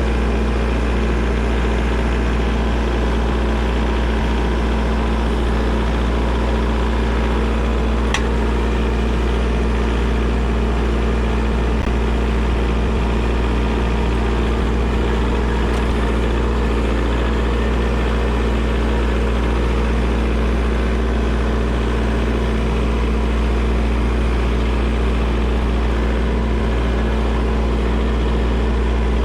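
Kubota tractor's diesel engine running at a steady speed while pushing snow, with a single brief click about eight seconds in.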